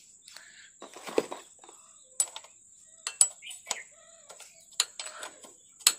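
Steel spanners clinking against the engine-oil drain bolt and the engine's underside as a ring spanner is fitted onto the freshly refitted drain bolt of a Bajaj Platina's sump: a scatter of sharp metallic clinks and short rattles, over a faint steady high whine.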